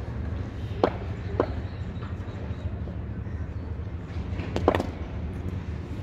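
Sharp knocks of cricket balls in practice nets, a ball striking bat and pitch: one about a second in, another half a second later, and a quick cluster of knocks near the end, over a steady low rumble.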